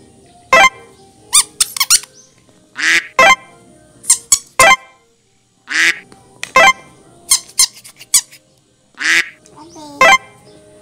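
Yellow rubber duck squeeze toys squeaking, about fifteen short squeaks at irregular intervals. A few of the louder ones rise sharply in pitch.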